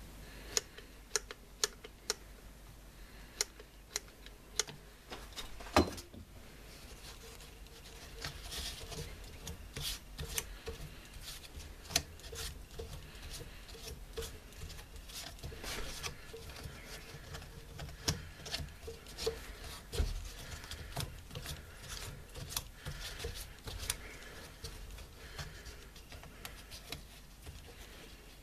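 Irregular small clicks, taps and rustling from hands and a tool working around the plastic motor housing of an electric lawn mower, with a sharper knock about six seconds in.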